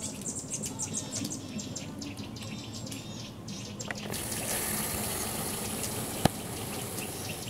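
Small forest birds giving quick, high chirps. About four seconds in, a steady hiss sets in, and near the end there is one sharp click.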